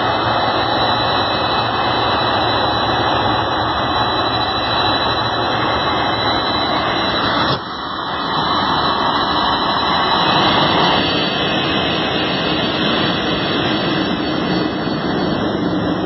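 Jet engines of a Boeing 767 airliner taxiing past at close range: steady, loud jet noise with a thin high whine. The sound drops abruptly about seven and a half seconds in, then builds back up as the plane passes.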